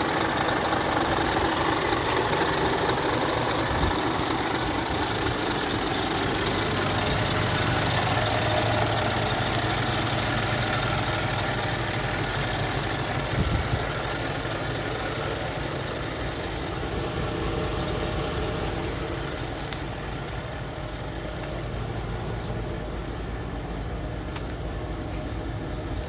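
A Scania R440's 13-litre inline-six diesel engine idling steadily, a little quieter from about halfway through. There is a single short thump midway.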